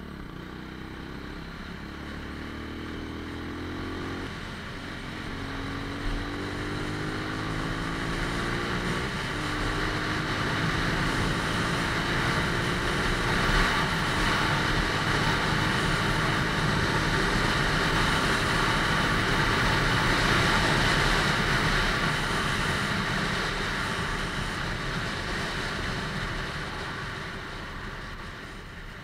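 Lexmoto ZSX-F motorcycle engine accelerating up through the gears, its pitch rising and dropping back at shifts about four and nine seconds in. It then runs at speed under heavy wind and road noise, loudest in the middle and easing off near the end.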